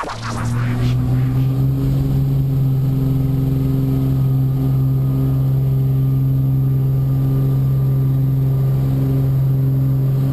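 Light propeller aircraft's piston engine running steadily, heard from inside the cabin; the hum comes up over the first second, then holds an even pitch.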